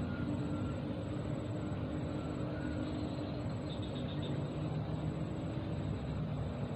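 Steady outdoor background rumble with a faint continuous hum, and faint high-pitched chirping repeating at a regular pace.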